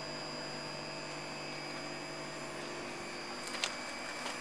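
Steady electrical hum with hiss from the equipment at the base of a wind turbine, with a few short clicks about three and a half seconds in and again near the end.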